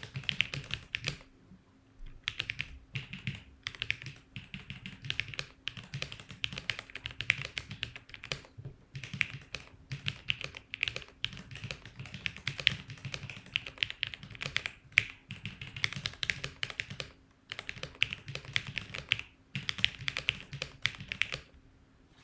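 Typing in quick bursts on a KLOR split mechanical keyboard with Creamy retooled switches and DSA keycaps: rapid keystroke clacks with a few short pauses, stopping shortly before the end.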